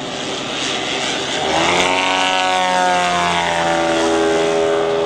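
Engine and propeller of a large radio-controlled model Piper Cub flying close overhead, getting louder about one and a half seconds in, then its pitch sliding down over a couple of seconds before holding steady as the plane goes past.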